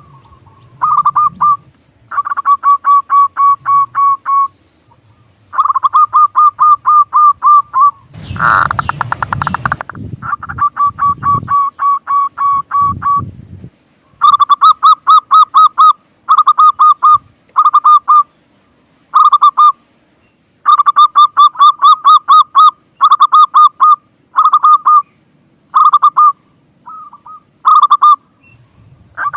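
Zebra dove (perkutut) cooing: repeated phrases of rapid staccato notes, each lasting one to three seconds with short pauses between. About eight seconds in, a loud noisy rush briefly covers the calls.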